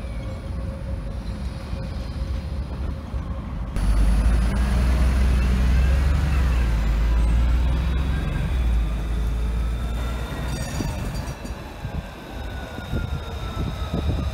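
Electric trams on street track: at first a tram rounding a curve with a steady squeal, then from about four seconds in a heavy low rumble of an approaching tram with the gliding whine of its electric drive, the whine falling as it slows.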